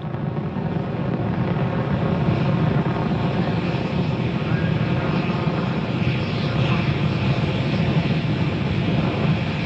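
Soyuz rocket engines during ascent, a steady low rumble that swells up over the first second and then holds.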